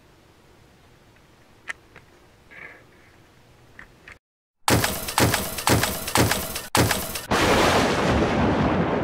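Quiet room tone with a few faint clicks, then, after a moment of silence at a cut, a loud sound effect for the channel's animated logo begins about halfway through: a run of sharp cracks about two a second, followed by a long noisy crash that slowly dies away.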